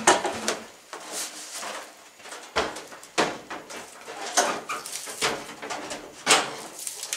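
Samsung over-the-range microwave being lifted and hung on its wall mounting plate: several irregular knocks and scrapes of its metal case against the bracket and cabinet. The loudest knocks come at the start and about six seconds in.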